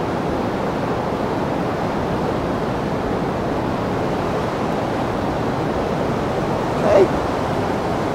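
Steady rushing of the flood-high New River, an even noise that sounds like a distant train. A short voice sound comes about seven seconds in.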